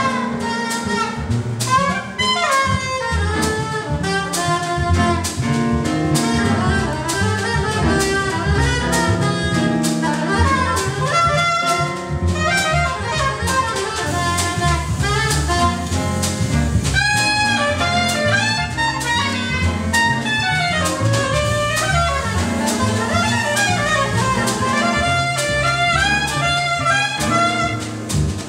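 Live small-group jazz: a soprano saxophone plays quick melodic lines over plucked upright bass, a drum kit with ride cymbal, and electric keyboard, without a break.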